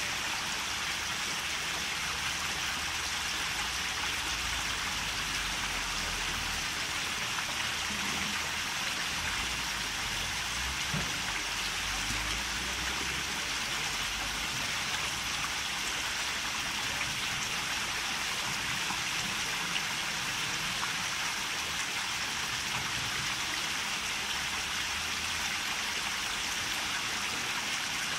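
Steady splash and trickle of running water in a koi pond.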